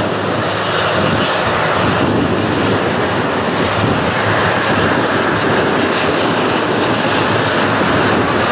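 Boeing 767's twin jet engines running up to takeoff power at the start of its takeoff roll: a loud steady roar, with an engine whine that rises in pitch near the end.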